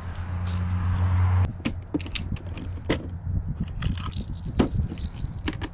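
Metal fishing tackle (sinkers, hooks and swivels) clinking and rattling as a hand picks through a plastic tackle box, in a run of short sharp clicks with a brief high metallic ringing. Before it a steady low hum stops suddenly about a second and a half in.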